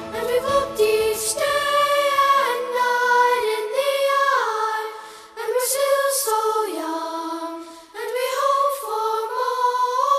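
Music: layered wordless vocals singing slow held notes that glide between pitches, a cappella, with no bass or drums after the first second.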